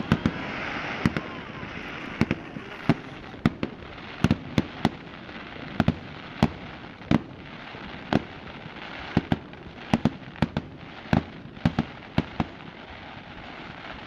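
Aerial fireworks bursting: a continuous crackling hiss with many sharp bangs at irregular intervals, sometimes two or three close together.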